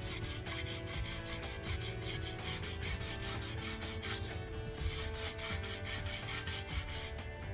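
80-grit sandpaper rubbed over the curb-rashed rim edge of a cast aluminium alloy wheel in quick back-and-forth strokes, about four or five a second, with a brief pause a little past the middle.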